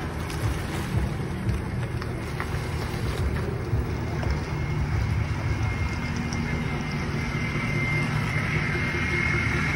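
Vehicle engine running, a steady low rumble, with a faint high steady whine growing louder in the second half.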